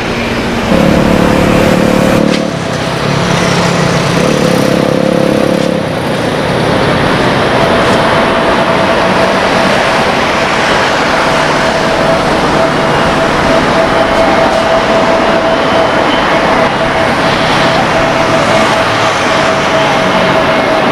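Jet airliner noise: a steady rush from an Airbus A320neo's CFM LEAP-1A engines on final approach, with a steady whine setting in about seven seconds in. Twice in the first six seconds, a lower pitched drone sounds over the jet noise.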